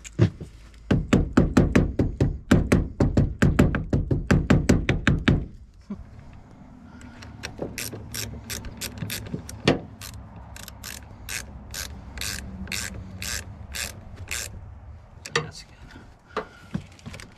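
A hammer tapping a battery terminal clamp down onto its post in quick, light strikes, about five or six a second, for several seconds. Then a ratchet wrench clicks in steady strokes, about two or three a second, as the terminal clamp is tightened.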